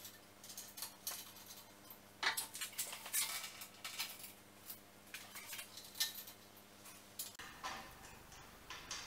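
Scattered metal clinks and taps of bolts and hardware as a 12,000 lb Badland winch is fitted onto its steel mounting plate. The loudest clinks come a little over two seconds in and at about six seconds. A steady low hum runs underneath and stops about seven seconds in.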